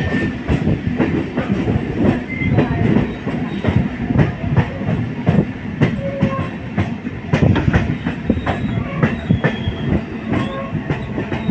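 Train wheels running on the rails, heard from inside the carriage at speed: a steady loud rumble packed with rapid, irregular clattering over the track, with a few brief high squeaks.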